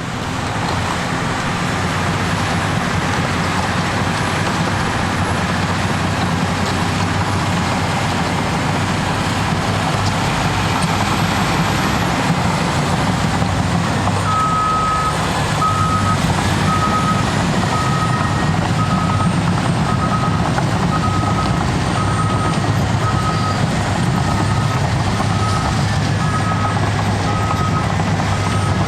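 Cat D6T bulldozer's diesel engine running steadily under work. About halfway through, its reversing alarm starts beeping at an even rate of roughly one and a half beeps a second as the dozer backs up.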